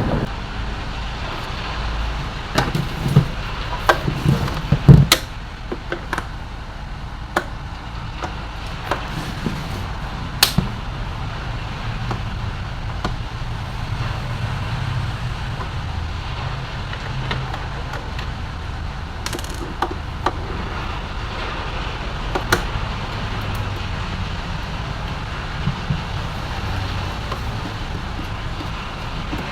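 Scattered clicks and knocks of a mixer-grinder being taken apart by hand and with tools, loudest in a cluster a few seconds in, over steady background noise.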